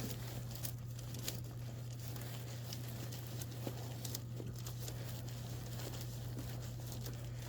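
Rustling and a few light clicks of wire being fed down a pipe by hand, over a steady low hum.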